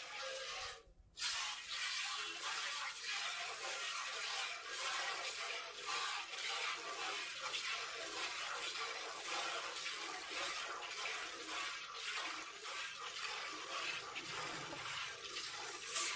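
Streams of milk squirting into a steel bucket partly filled with milk as a water buffalo is milked by hand: a steady hiss made of quick, rhythmic squirts, with a brief break about a second in.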